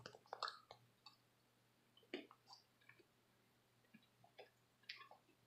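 Near silence broken by a few faint, scattered clicks: a small pet chewing a piece of chocolate.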